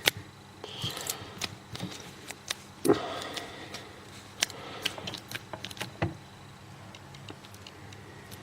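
Key being worked in a cutaway 7-pin dimple lock: irregular small clicks and scrapes as the stiff cylinder catches on the roughly cut cutaway edges.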